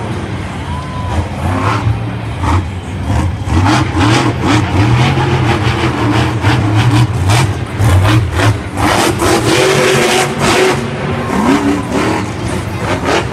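Monster truck's supercharged V8 engine revving up and down repeatedly during a freestyle run, with sharp crackles throughout.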